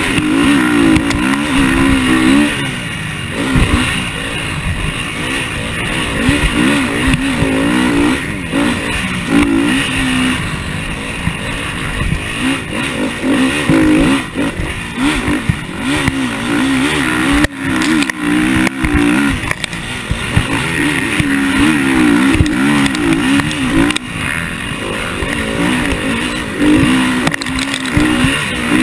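KTM motocross bike's engine ridden hard, its revs rising and falling over and over as the rider accelerates, shifts and backs off around a dirt track, heard from on board.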